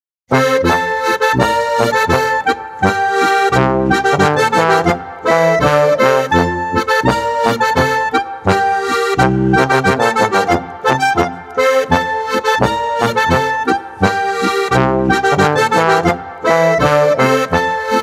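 Accordion playing a Boarischer, a Bavarian folk dance tune, with a bouncing melody over regular bass notes.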